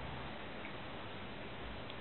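Small brushless computer cooling fan spinning, a faint steady whir with a low hum, and a light tick near the end.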